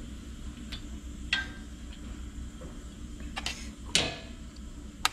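A few sharp metallic clicks and clinks of a hand tool against the small engine's carburetor choke linkage as the choke rod is refitted, the loudest about four seconds in, over a steady low hum.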